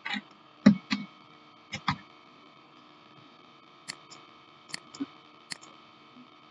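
Irregular clicking from computer use, with a few louder clicks in the first two seconds and fainter ticks a few seconds later. A faint steady mains hum runs underneath.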